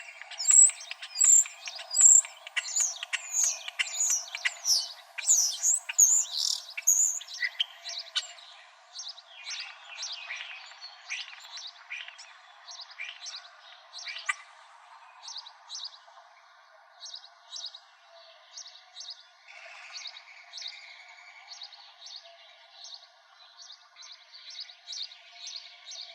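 Small birds chirping: a dense run of quick, loud down-sweeping chirps for about the first eight seconds, then quieter, evenly spaced chirps about twice a second.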